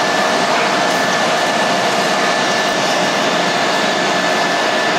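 Airbus A330-243's Rolls-Royce Trent 772B turbofan engines running steadily: a loud, constant rushing noise with a steady high whine over it.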